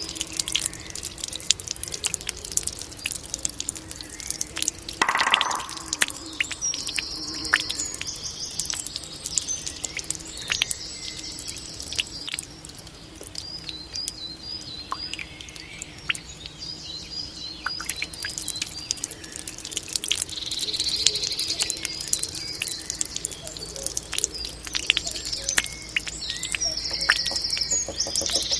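Japanese bamboo water fountain trickling, with many small drips and splashes, while songbirds chirp in short repeated trills. A brief, louder hollow sound comes once, about five seconds in.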